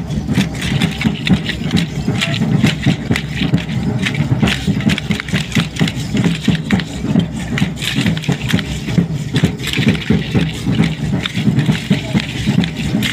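A matachines dance troupe dancing in step: a steady low drum beat under a dense, continuous rattling of hand rattles and the reed-fringed costumes.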